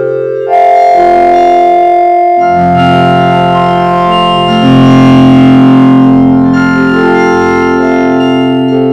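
Cartoon voices run through the 4ormulator V8 vocoder effect, which turns the talking into loud, sustained synthesizer-like chords. The chords step to new pitches every second or so, with a jump in loudness about half a second in.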